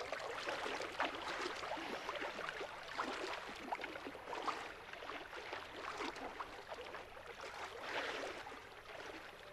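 Lake water splashing and lapping around two swimmers, a continuous irregular patter of small splashes.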